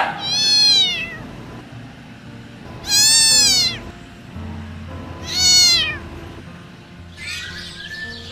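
An animal calling three times, each a drawn-out, meow-like cry about a second long that rises and then falls in pitch.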